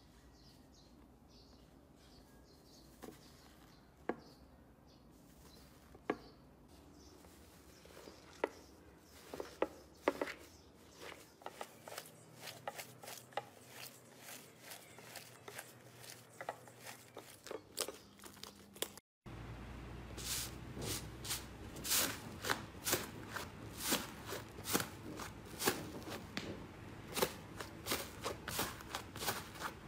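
Hands squeezing and kneading slime, giving sticky clicks and pops that start out scattered and become a steady run of crackles as a foamy slime is worked. After a sudden cut about two-thirds of the way through, hands pressing another slime make louder, denser crackling and popping.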